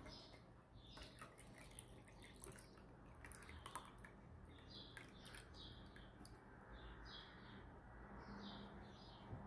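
Near silence: quiet room tone with faint, short high chirps scattered throughout.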